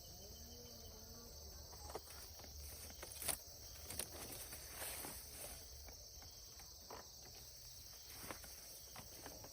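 Crickets chirring steadily in a faint high-pitched chorus, with scattered light clicks and knocks throughout and a faint repeated pitched call in the first second.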